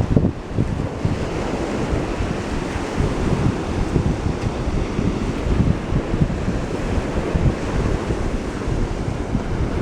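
Wind buffeting the microphone, with waves washing in steadily beneath it.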